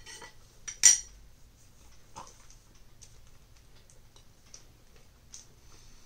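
Metal cutlery clinking against a ceramic plate as a fork and knife are set down, the sharpest and loudest clink about a second in. A few faint clicks follow as a plastic bottle cap is twisted off.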